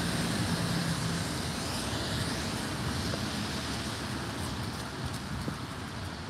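A red double-decker bus passes close by and pulls away, its engine hum and tyre noise on the wet road fading into steady street traffic noise.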